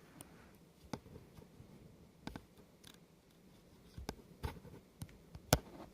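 Small, irregular plastic clicks and taps as tools are handled and slotted into a Victorinox SwissCard Classic's plastic case, with the sharpest click near the end.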